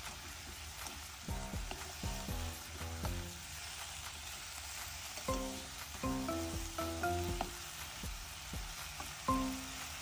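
Chunks of chicken, lotus root, shiitake, carrot and konnyaku sizzling in oil as they are stirred with a spatula in a nonstick pan. Short melodic notes of background music play over it, more of them in the second half.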